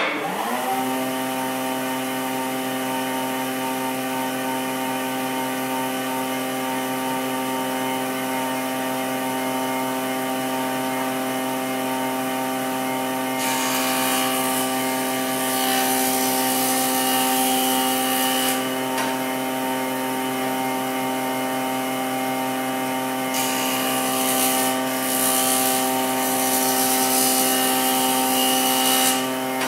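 Nishino Seisakusho MK-900 universal woodworking machine switched on: its motor and cutter spin up with a rising whine in the first second, then run at a steady hum. Twice, for about five seconds each, a harsh hiss joins in as wood is fed through the cutter.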